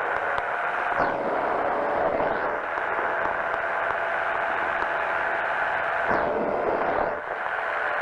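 Powered parachute's engine and propeller running steadily in flight. There are two brief swells of rushing noise, about a second in and again around six to seven seconds in.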